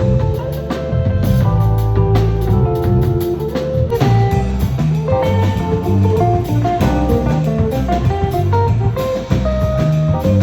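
Live band playing an instrumental passage: a guitar melody over bass and a drum kit.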